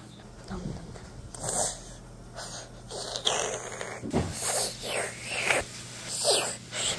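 A string of short, breathy mouth noises from a child voicing a stuffed animal as it pretends to eat from a plate, several puffs close together between about three and six and a half seconds in.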